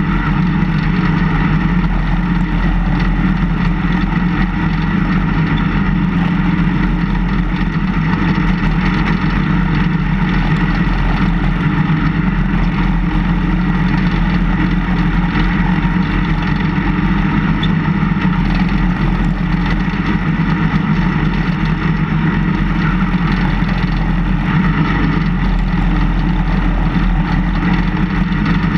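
Engine of a snowplow vehicle running steadily at an even speed, heard close up from a camera mounted by the plow blade.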